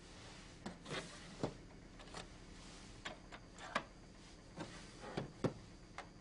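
About a dozen light clicks and knocks at irregular intervals, from handling the Hach Lange DR 6000 UV-VIS spectrophotometer: its hinged sample-compartment lid is opened and shut while a hand reaches into the compartment. The loudest pair of knocks comes about five seconds in, as the lid is closed.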